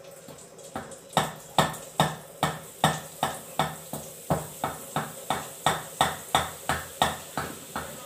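Steel jhara (perforated ladle) knocking in a steady rhythm of sharp metallic taps, about two or three a second, starting about a second in, as boondi batter is worked through its holes into hot ghee.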